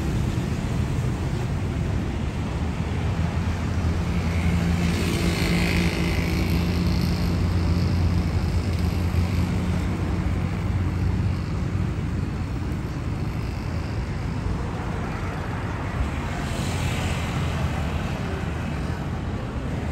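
Rush-hour city road traffic: a steady low engine rumble, with tyre hiss swelling as vehicles pass about five seconds in and again near the end.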